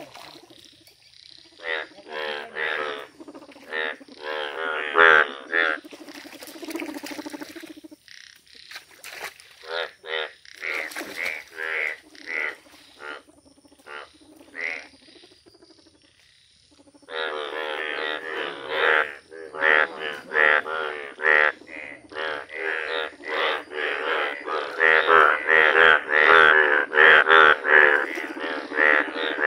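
Breeding chorus of male Indian bullfrogs, several frogs giving short, pitched croaks in quick succession. The calling thins out about halfway, with a short lull, then comes back louder and denser.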